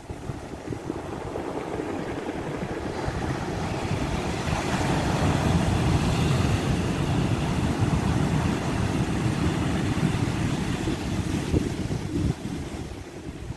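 Sea waves breaking and washing up onto a beach of rounded stones, the surf swelling about two seconds in and easing toward the end, with wind buffeting the microphone.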